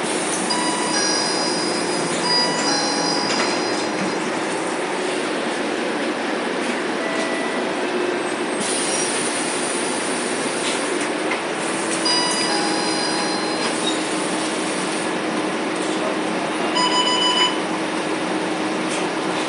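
Cabin noise inside a Volvo B9TL double-decker bus under way: steady diesel engine and road noise, with scattered short high-pitched squeaks and rattles from the cabin.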